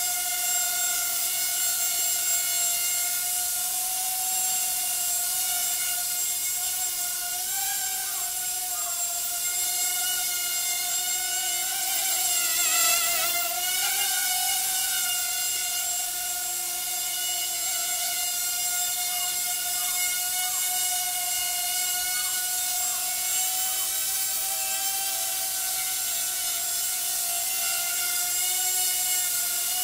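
Hubsan H107D FPV X4 micro quadcopter in flight: a steady high whine from its four small propellers and motors, wavering slightly in pitch as the throttle shifts, with a larger wobble about halfway through.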